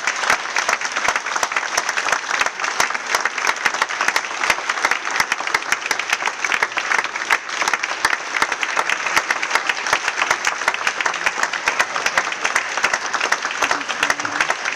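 Sustained applause from a roomful of people clapping, steady throughout, with some individual claps standing out sharply.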